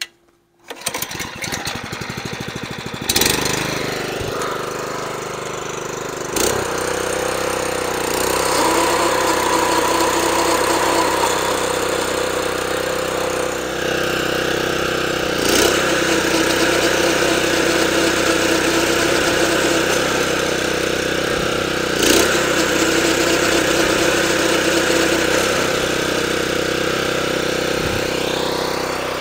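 Honda GX120 engine on a California Trimmer reel mower, coming on about a second in and then running steadily. A few sharp knocks sound over it.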